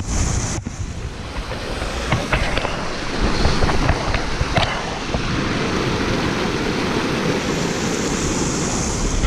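Waterfall rushing steadily, with wind noise on the microphone. A few light clicks sound in the middle.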